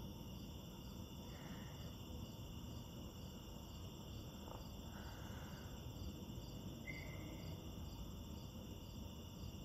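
Night insects chirping in a steady, faint, high-pitched trill, with no thunder audible.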